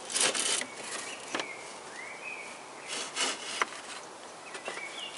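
Toyota Corolla's aluminium radiator scraping and rubbing against the surrounding panels as it is lifted out of its mounts, in a few short bursts, with a sharp knock about three and a half seconds in.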